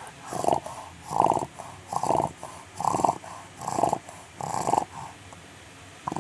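Chow Chow dog snoring in its sleep: six rasping snores in a steady rhythm, a little faster than one a second, then a pause near the end.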